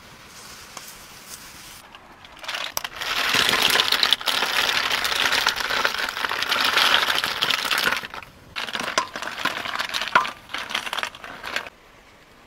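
Snail shells poured out of a wicker basket, clattering and rattling against one another in a dense stream for several seconds. This is followed by scattered clicks and short rattles as the shells settle.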